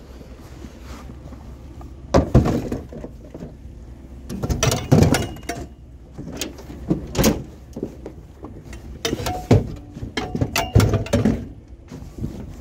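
A series of loud clanks and bangs of metal scrap being handled and dropped into a truck, some hits ringing briefly, in clusters about two, five, seven and ten seconds in.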